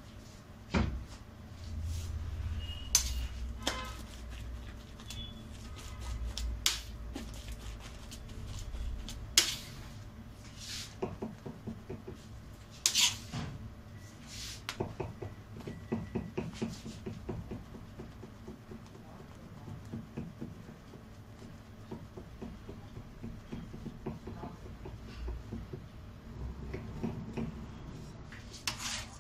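Cake-decorating spatula and turntable handled while whipped cream is spread over a sponge cake: scattered sharp clicks and knocks, with runs of quick light tapping and scraping.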